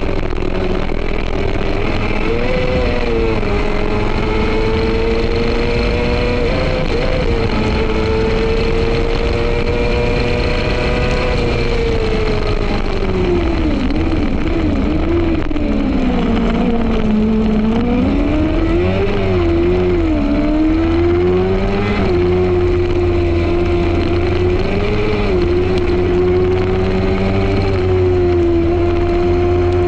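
F2 racing sidecar engine running hard at high revs, heard on board. About halfway the pitch drops and wavers for a few seconds, then climbs back and holds steady.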